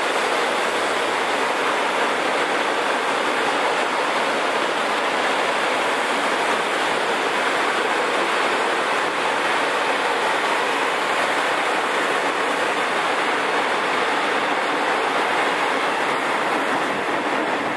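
Freight train of tank wagons rolling past, a steady rushing rumble of steel wheels on the rails.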